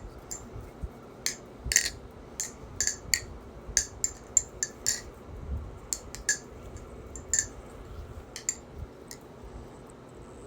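LDY Kite AL V1.5 balisong being flipped: a long irregular run of sharp metallic clicks, as the handles swing on their pivots and knock together, about two a second.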